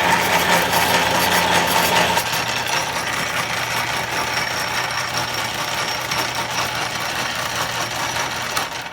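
Homemade motor-driven wire stripper running: an old bandsaw's electric motor turning the rollers through gears and a pulley belt, a steady, noisy mechanical whir. It is louder for the first two seconds or so, then runs steadily and cuts off abruptly at the very end.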